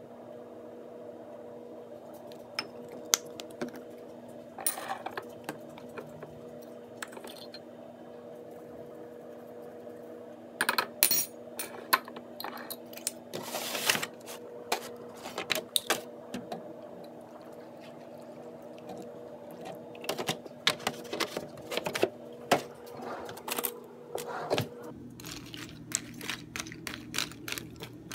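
A metal spoon clinking and knocking against a cereal bowl in irregular bursts while cereal is eaten, over a steady low hum.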